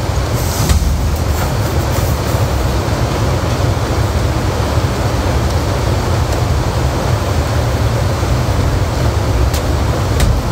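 A steady, loud rumbling noise, heaviest in the low end, with a few faint clicks about a second in and again near the end.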